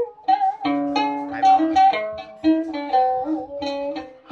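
Đàn kìm (Vietnamese moon lute) played solo: phrases of plucked notes, some of them sliding and wavering in pitch, with short pauses between phrases.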